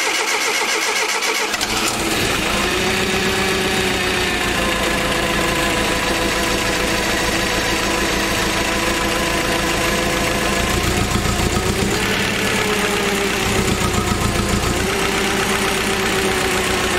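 Nissan H20 four-cylinder engine of a TCM forklift being cranked and catching about two seconds in, then running steadily with its valve cover off, just after its valve clearances were set and plugs gapped.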